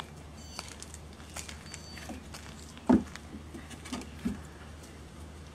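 Dogs' paws and claws pattering on paving, with one loud thump about three seconds in and two lighter knocks about a second later.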